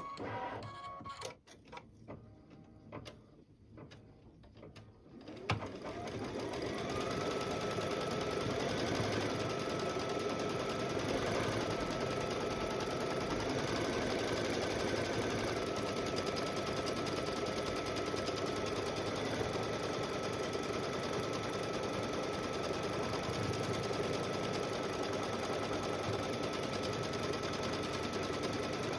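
Computerized embroidery machine starting up about five seconds in, after a few soft clicks, and then stitching steadily, with a high whine that briefly steps up in pitch a few times. It is sewing the first step of the design: the outline of a mug, tacking the batting down onto the stabilizer.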